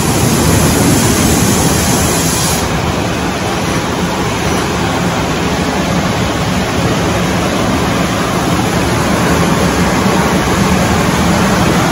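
Sawmill machinery running: a loud, steady, even noise with no clear breaks or separate strokes.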